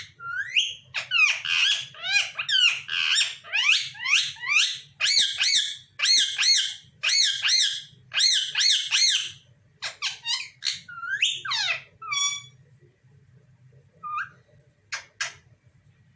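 Pet parrots calling: a fast run of high-pitched squawks that rise and fall, about two a second, for roughly ten seconds, then a few scattered single calls.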